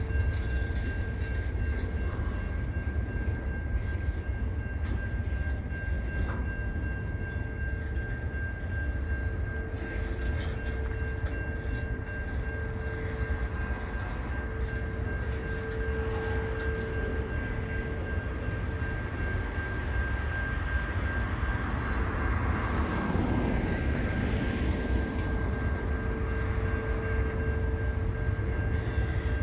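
Freight train wagons rolling past with a steady low rumble and a steady high whine over it; a louder whoosh swells and fades about two-thirds of the way through.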